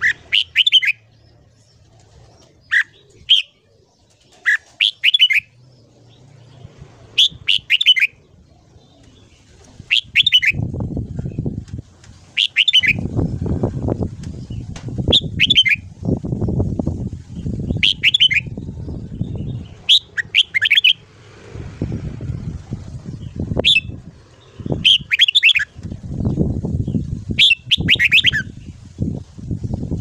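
Red-whiskered bulbul singing short, warbled whistled phrases, repeated every one to two seconds or so. From about ten seconds in, a low, irregular rumbling comes in under the song.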